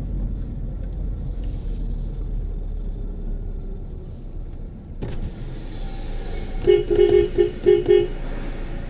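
Low road and engine rumble heard from inside a moving car's cabin, then near the end a car horn tooting in a quick series of short beeps.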